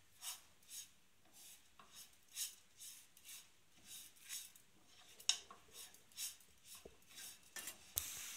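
A spoon scraping and rubbing around a pan as a grated coconut and sugar mixture is stirred, in short strokes about twice a second, while the sugar melts.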